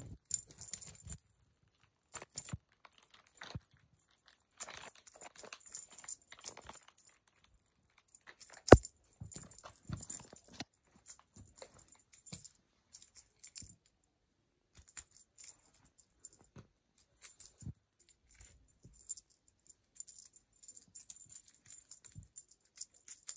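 Scattered soft clicks, taps and rustles of Persian kittens batting at and scrambling after a feather wand toy on a fabric blanket, with one sharp knock about nine seconds in.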